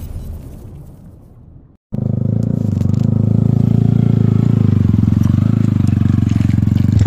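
The fading tail of an intro music sting, then after a short cut about two seconds in, a sport motorcycle's engine running steadily at low revs, with an even rapid pulse and no change in pitch.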